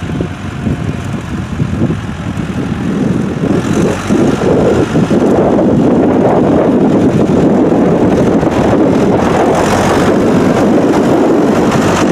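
Tractor engine running as the tractor drives toward the microphone, growing louder over the first few seconds and then holding steady as it passes close by.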